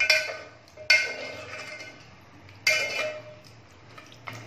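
A metal ladle knocking against the side of a metal cooking pot while stirring curry: three ringing clinks, each fading out, and a faint tap near the end.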